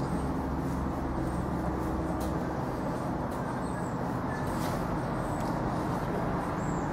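A steady, even engine hum over a constant low rumble.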